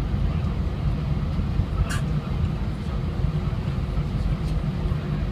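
Steady low rumble inside the cabin of an Airbus A320 rolling out on the runway after landing: the wheels run on the pavement under the engines' noise. A single sharp click sounds about two seconds in.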